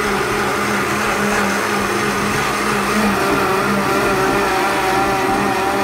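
Oster personal blender running steadily with a constant motor whir, blending fruit and milk into a smooth purée.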